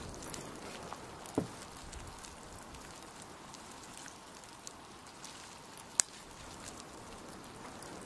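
Crackling and ticking of a pahoehoe lava flow's cooling crust over a steady hiss, with scattered small clicks, a dull thump about a second and a half in, and one sharp crack about six seconds in.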